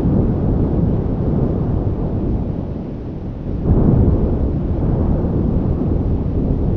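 Deep, continuous rumbling noise from a monster sound effect, with a sudden louder surge about four seconds in.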